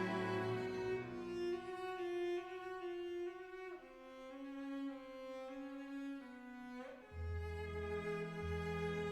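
Slow instrumental music of long held notes: a melody stepping from note to note over a lower line, with a deeper bass part coming in about seven seconds in.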